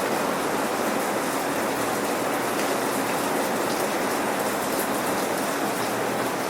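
Steady rain falling on surfaces, an even patter of raindrops with no thunder.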